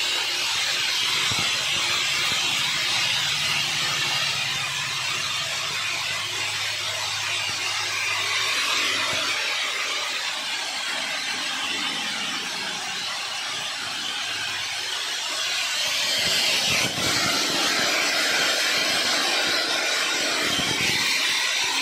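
Soybeans streaming down the galvanized steel flights of a gravity spiral seed grader, a steady hissing rush of beans sliding and rolling on metal that grows a little louder about three-quarters of the way through.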